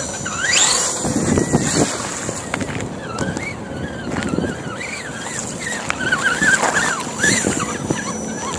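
Axial SCX10 RC crawler's electric motor and drivetrain whining as it drives, the pitch rising and falling with the throttle, with a faint steady high-pitched whine under it and some rumbling from the tyres on the wet ground.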